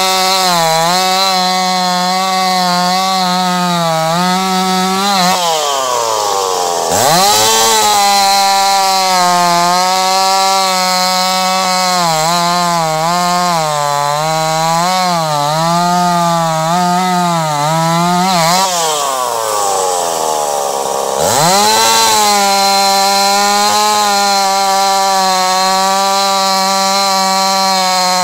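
Ported Stihl 026 two-stroke chainsaw running at full throttle in a silver maple log, its pitch wavering under load. About five seconds in and again near eighteen seconds, the throttle is let off so the engine winds down, then it revs straight back up.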